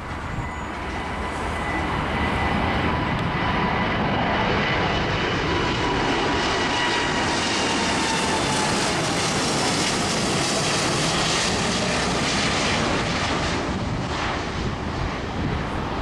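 Jet engines of a Boeing 787 Dreamliner climbing out after takeoff and passing overhead. The roar builds over the first couple of seconds and holds, with a high whine that drops in pitch as the jet goes by, then eases off in the last few seconds as it flies away.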